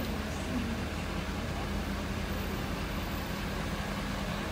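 Pickup truck engine idling with a steady, low hum.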